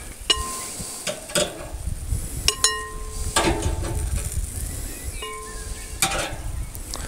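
Metal barbecue tongs clinking against a glass salad bowl as grilled tomatoes are dropped in: several sharp clicks, three of which ring briefly like struck glass. A faint sizzle from the grill runs underneath, with a low rumble in the middle.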